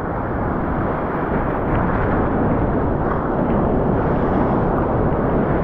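Sea water rushing and churning close by, a steady, loud low rush of surf with no breaks.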